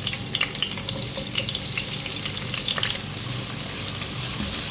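Sliced onions sizzling in hot oil in a pot as they are tipped in and stirred with a wooden spatula: a steady sizzle dotted with many small crackles.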